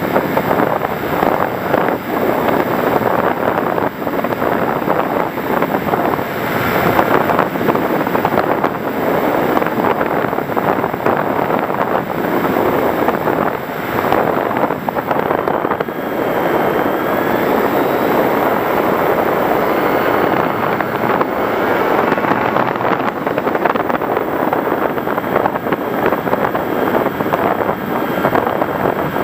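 Radio-controlled FPV model aircraft in flight: steady, loud rushing of air over the microphone, with a faint motor whine that wavers in pitch around the middle.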